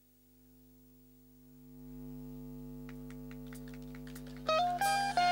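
Steady electrical mains hum that fades in and holds, with a few faint ticks; music starts near the end.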